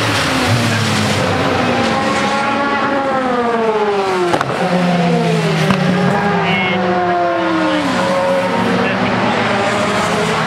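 Several racing saloon cars passing one after another at speed, each engine note falling in pitch as it goes by.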